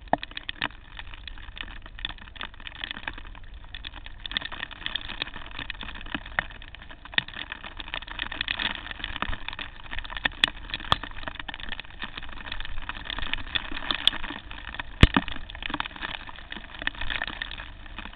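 Mountain bike ridden fast along a dirt singletrack: a steady rush of tyre and rolling noise over dirt and leaf litter, broken by frequent sharp knocks and rattles as the bike hits bumps, the loudest about fifteen seconds in.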